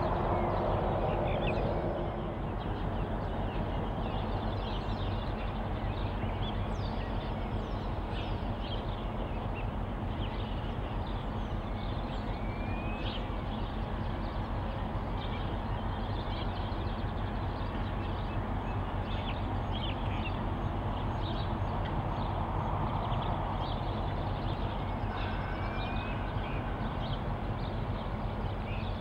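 DC-class diesel-electric locomotives idling with a steady low hum, their sound dropping in level about two seconds in as they come to a stand. Birds chirp throughout.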